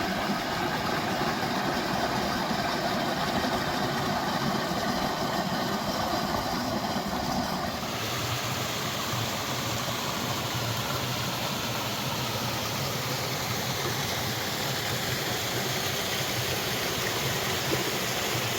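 Steady rush of Mill Creek's flowing water and falls.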